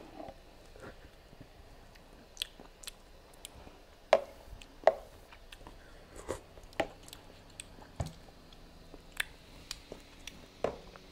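Scattered soft clicks and taps of a metal spoon in a plastic blender jar, with small mouth sounds as thin salsa is tasted from the spoon.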